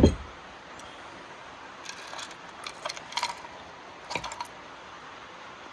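A dull thump at the start, then several light metallic clicks and clinks of engine parts and hand tools being handled as the camshafts come off the cylinder head of a Polaris Sportsman 570.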